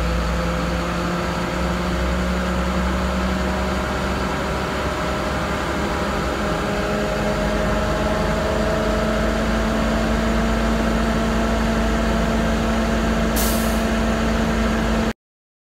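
Navistar MaxxForce DT inline-six diesel running steadily with its engine speed raised for a parked DPF regeneration, its note creeping slightly higher. There is a brief hiss near the end, and then the sound cuts off abruptly.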